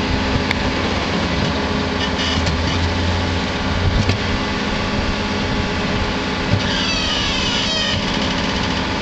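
Diesel engine of a wheeled excavator carrying a tree spade, running steadily as the spade works a tree out of the ground. A high-pitched squeal rises and falls about seven seconds in.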